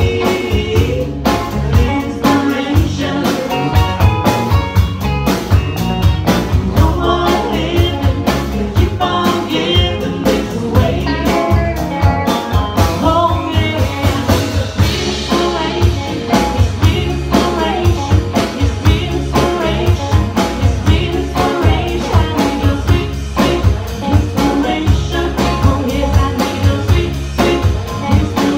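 A band playing an upbeat rock-and-soul song: sung vocals over a steady drum beat and bass.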